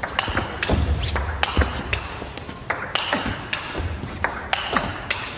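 Table tennis ball struck back and forth in a fast rally: a rapid series of sharp clicks as the celluloid ball hits the rackets and bounces on the table.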